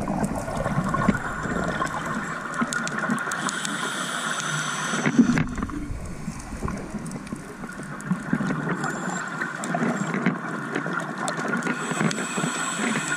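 Underwater sound heard through a camera housing: a scuba diver's regulator breathing, with rumbling bubbles from the exhales and scattered sharp clicks. A hiss comes in about three to five seconds in.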